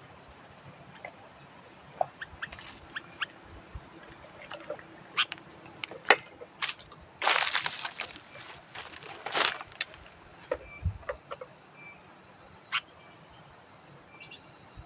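Sooty-headed bulbul calling in short, scattered chirps and clicks, with a harsh, noisy chattering call about seven seconds in and again about nine seconds in.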